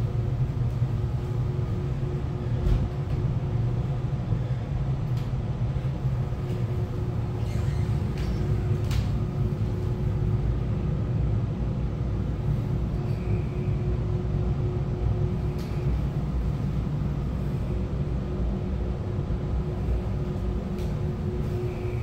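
A steady low rumble with a faint steady hum over it, and a couple of faint clicks.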